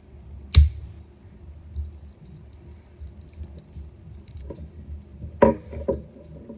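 Handling noise from Swiss Army pocketknives: one sharp click about half a second in, then a few faint ticks and a quick cluster of three or four clicks and knocks near the end.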